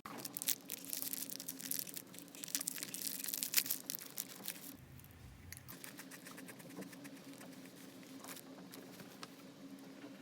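Plastic snack packaging being torn open and crinkled, with dense crackling for the first four seconds or so, then a few scattered crackles.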